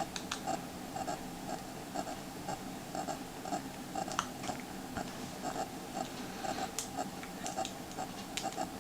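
Faint, irregular small clicks and scrapes of a small Phillips screwdriver turning two tiny screws out of the back of an LG G3 phone, over a faint regular ticking about twice a second.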